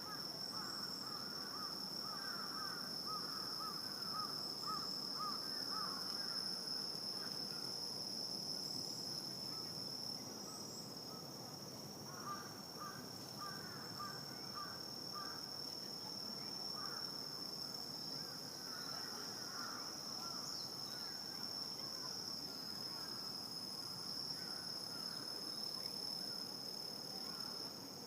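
A night insect chorus of crickets: a steady, unbroken high-pitched trill. Over it come runs of lower, quickly repeated chirping calls, first at the start and again about halfway through.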